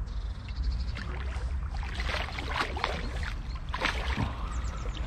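Water splashing and sloshing in short, irregular bursts over a steady low rumble.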